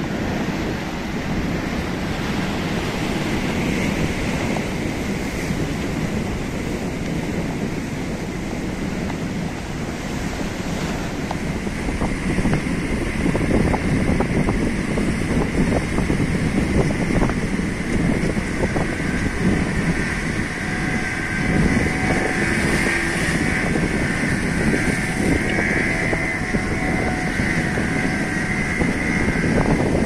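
Sea surf breaking and washing over a rocky breakwater, with strong wind buffeting the microphone. It gets somewhat louder about halfway through.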